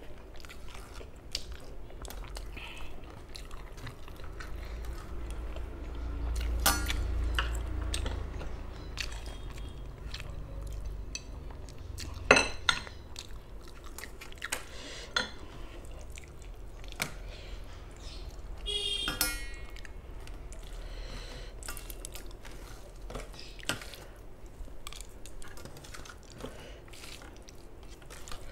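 Close-miked chewing and mouth sounds of someone eating rice and prawn curry by hand, with scattered short clicks and occasional clinks against a steel plate as the rice is mixed with the fingers; one sharp loud click comes about twelve seconds in.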